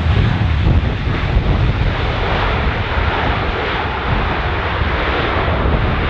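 Jet engines of a Boeing 737-800 airliner running as it rolls down the runway after touchdown, a steady loud jet noise. Gusty wind buffets the microphone and adds a low rumble.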